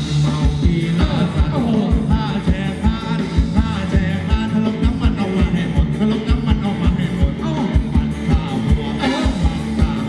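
Live band playing Thai ramwong dance music, with a steady, quick drum beat and a singer.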